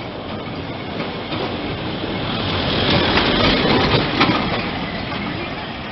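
Lisbon tram running along street rails with a steady rattle. The noise builds about halfway through into a run of sharp clacks and then eases.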